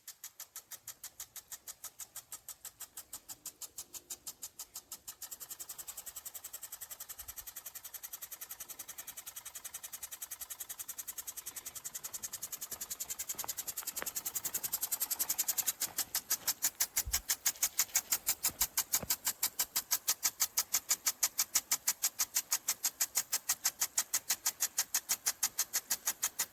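Impact sprinkler running, its swinging arm striking the water stream in a steady rapid ticking of about three to four ticks a second over the hiss of the spray. The ticking gets louder about five seconds in and again about halfway through.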